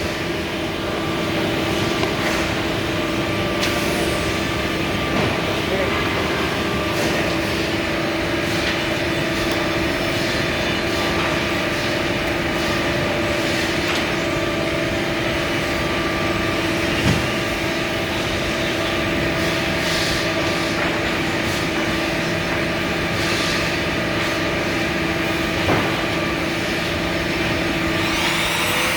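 Steady hum of running machinery with constant steady tones, and a few faint knocks here and there.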